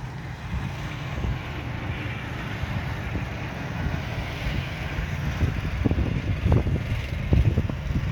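Off-road buggy running, with wind buffeting the microphone in gusts that grow stronger in the second half.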